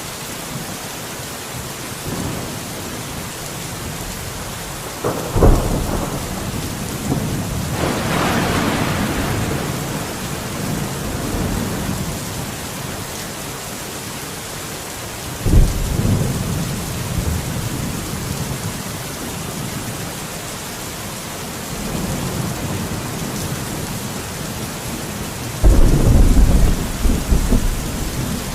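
Steady rain with rolling thunder. A sharp thunderclap comes about five seconds in, a longer rumble a few seconds later, another clap about halfway through, and the loudest rumble of all near the end.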